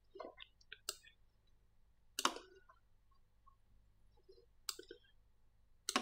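Computer mouse clicking and its scroll wheel turning: several sharp, separate clicks, spaced a second or more apart.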